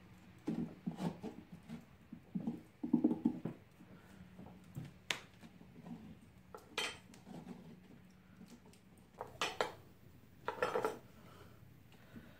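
Scraping and scooping out the flesh inside a whole pumpkin, hollowing it out: irregular scrapes in short runs, with a few sharp knocks and clicks.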